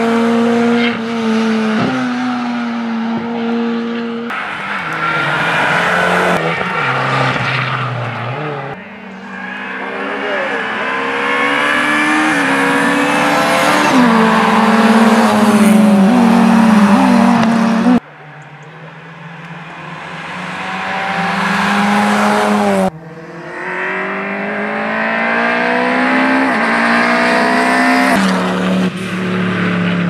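Rally cars at full throttle one after another in short clips. Their engines climb steadily in pitch and drop back sharply at each upshift. The sound cuts abruptly from one car to the next several times.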